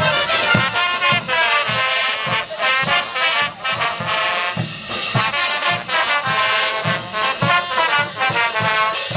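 Band music with brass instruments playing a melody over a steady low drum beat of about two beats a second.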